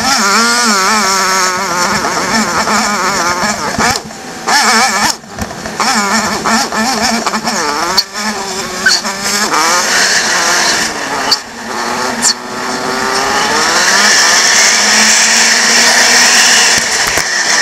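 BMW F800GS parallel-twin engine running under way, its pitch rising and falling with throttle and gear changes, with several short drops. About two-thirds in it revs up in one long rise and then runs steadily faster, with strong wind rush on the microphone. The footage is sped up to double speed.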